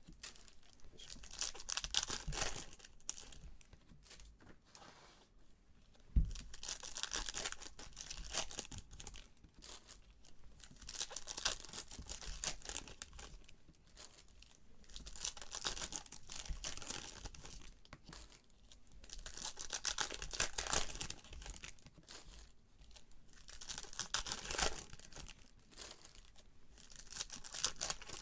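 Stack of Topps Gallery baseball cards being flipped through by gloved hands, the cards sliding and rustling against each other in swells every few seconds. A foil pack wrapper crinkles near the end.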